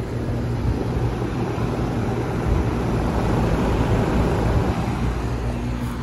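Steady low hum of running air-conditioner condensers under a rushing noise that swells through the middle. The hum's higher tone fades and returns near the end.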